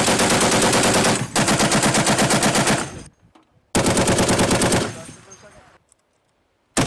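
M2 .50-calibre heavy machine gun firing sustained bursts at a steady rate of about eight rounds a second, each burst ending in a short fading echo. A burst is already running at the start, a second follows almost at once, a third comes about halfway through, and a last one begins right at the end.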